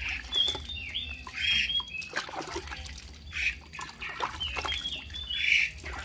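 Water dripping and splashing from a wet baby monkey into a plastic basin, with repeated short, high chirps and squeaks.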